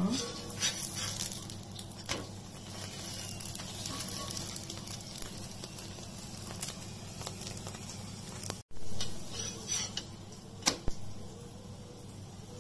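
Parotta frying on a hot cast-iron tawa, sizzling steadily, with a few sharp clicks and scrapes from a metal slotted spatula against the pan.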